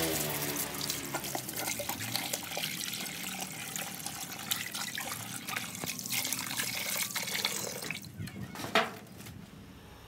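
Water from a garden hose pouring and splashing into a small glass aquarium as it is rinsed, with many small splashes and drips. There is a sharp knock near the end, and then the splashing falls away.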